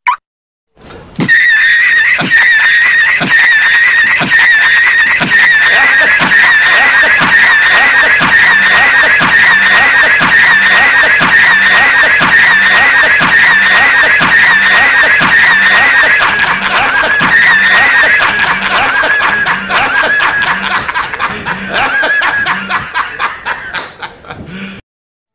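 Many overlapping copies of the J. Jonah Jameson laughing-meme clip playing at once, merging into one loud, dense wall of laughter with a steady high tone and an even pulse of about one and a half beats a second. It starts about a second in, thins out near the end and cuts off suddenly.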